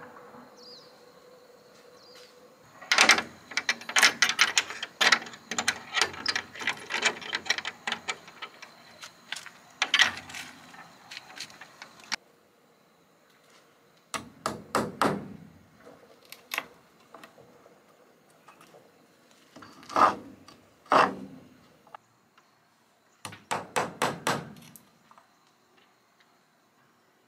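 Hammer striking wood in quick runs of blows: a long run of rapid knocks first, then, after a pause of about two seconds, shorter bursts of a few blows each.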